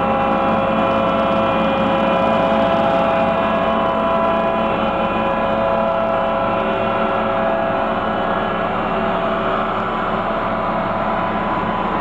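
Diesel engine of a smooth-drum road roller running close by as the machine rolls past: a steady hum with several steady tones that weaken in the second half.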